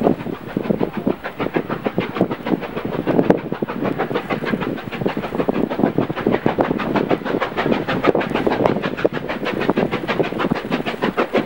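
Steam train running: a steam locomotive hauling a rake of coaches, with a rapid, even beat.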